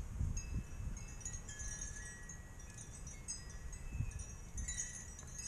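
Scattered high metallic chimes ringing softly and irregularly over a steady low rumble.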